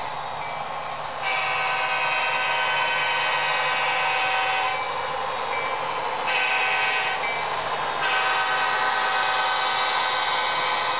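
Multi-tone air horn from a sound-equipped model diesel locomotive, played through its small onboard speaker in a long, short, long pattern, over steady room and track noise.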